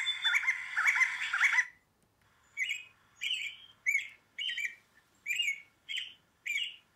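Bird calls in two parts. A resplendent quetzal's call, a dense run of repeated rising chirps, ends just under two seconds in. Then come seven short, sharp American robin calls, about two-thirds of a second apart.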